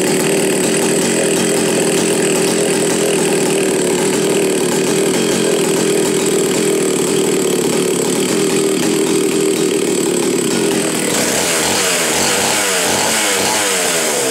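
McCulloch Super Pro 125 chainsaw's large two-stroke engine running loud and steady at high revs. For the last few seconds its pitch wavers up and down as the throttle is worked.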